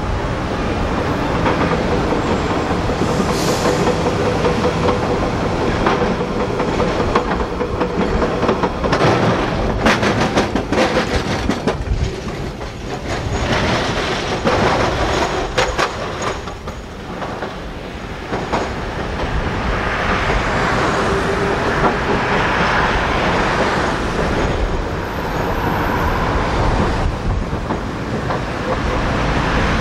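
Melbourne W-class and Z-class electric trams running along street track, with a steady rumble of wheels on rail. A run of sharp clicks comes about ten seconds in as wheels cross rail joints.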